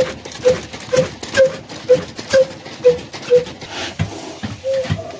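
Old stationary flywheel engine running on black oil (diesel), firing slowly with a steady beat about twice a second, each stroke a sharp knock. After about three and a half seconds the beats turn weaker and less regular.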